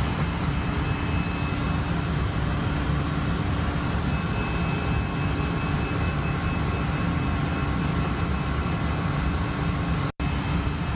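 Steady engine and airflow noise inside a Batik Air jet airliner's cockpit in flight, with a low hum running under it. The sound cuts out for an instant near the end.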